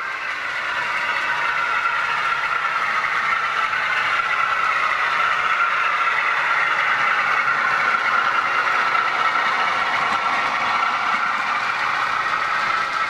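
Model diesel locomotive's DCC sound playing a running diesel engine through its small onboard speaker, with the clatter of model train wheels on the track. It grows louder over the first couple of seconds and then stays steady.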